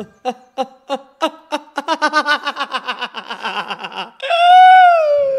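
A man laughing hard: short, evenly repeated bursts of laughter that come faster and faster, ending about four seconds in with one long, high cry that slowly falls in pitch and is the loudest part.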